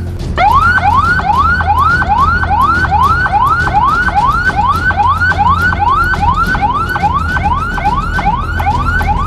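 Police siren sounding in a fast, repeated rising sweep, about two and a half times a second. It starts about half a second in, over a low steady drone.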